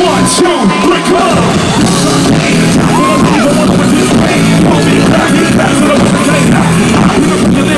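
Loud live concert music from an outdoor stage sound system, with a vocalist's voice over the band, recorded from inside the crowd.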